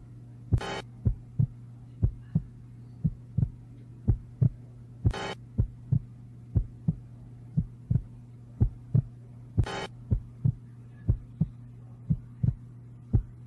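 Heartbeat-like double thumps, about two a second, over a steady low hum, with a short hissing sweep about every four and a half seconds: a suspense-style heartbeat sound effect.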